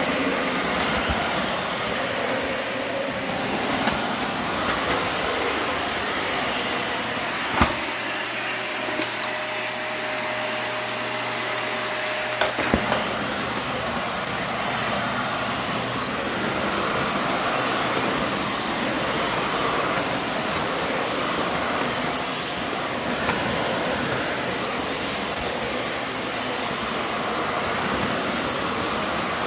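Dyson vacuum cleaner running steadily, sucking up dirt on a hard floor with its brush bar switched off. A sharp click comes about eight seconds in and another about five seconds later; between them the low rumble drops away and a thin whine shows.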